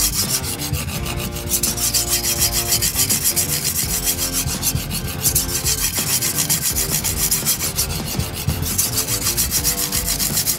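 Chef knife blade scraping back and forth across a 600-grit diamond sharpening stone in steady strokes, about three a second, working the burr over to the other side of the edge.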